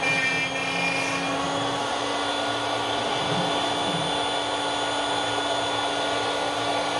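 ShopBot CNC router cutting plywood: the router spindle runs with a steady whine as the bit cuts into the sheet.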